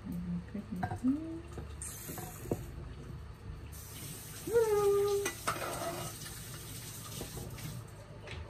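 Kitchen tap running into a sink from about four seconds in, a steady hiss, with a few light clinks of utensils against a bowl.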